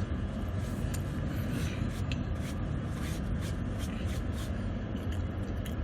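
A person chewing food: a run of short wet clicks and crackles, about two a second, over a steady low rumble.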